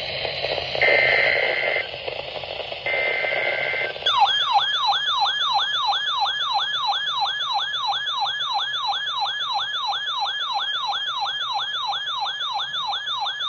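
Emergency Alert System alert: two short data-burst screeches of the SAME header over background hiss, then a warbling siren-like alert tone that sweeps up and down about three times a second.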